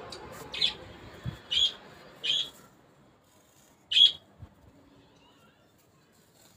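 A bird chirping: four short, sharp chirps over about four seconds, the last the loudest.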